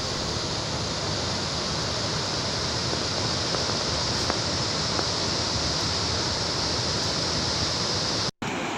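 Bogatha waterfall in flood, swollen by heavy rain upstream: a steady, even rush of falling and running water. It cuts out for an instant near the end.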